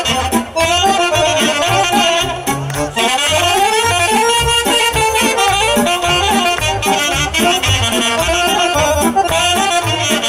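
Live band playing an instrumental break in a Romanian folk song: accordion and saxophones carry the melody over a steady beat.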